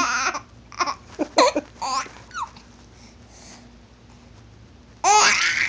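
A small child's voice: the end of a laugh, a few short babbling sounds, then a pause. About five seconds in comes a loud, long high-pitched squeal.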